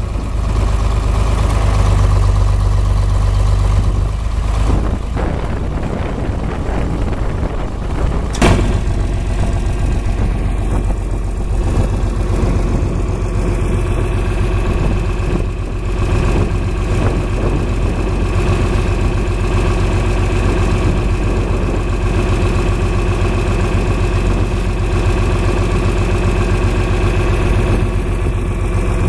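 Farm vehicle engine running steadily at a low idle-like pace, with a sharp click about eight seconds in.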